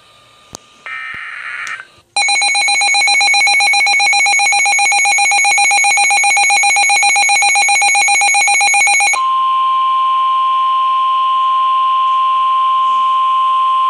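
Emergency Alert System alert tones for a severe thunderstorm warning. About a second in there is the last short burst of the warbling SAME header data. Then the two-tone EAS attention signal sounds for about seven seconds, switching abruptly to the steady single-pitch 1050 Hz weather radio warning tone.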